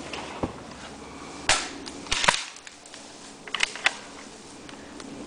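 Airsoft guns firing: scattered sharp shots, singly and in quick clusters, the loudest a little after two seconds in.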